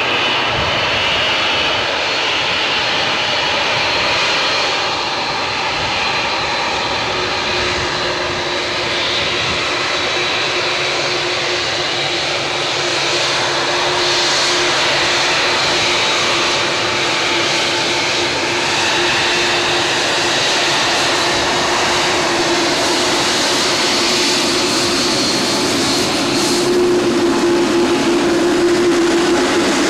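Boeing 787 airliner's jet engines at taxi power as it taxis on the runway, a steady whine. A low hum comes in after several seconds and grows stronger near the end as the aircraft comes closest.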